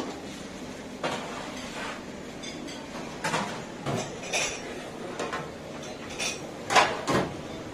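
Plates and metal serving utensils clattering at a canteen food counter: scattered clinks and knocks over a steady room din, the loudest about seven seconds in.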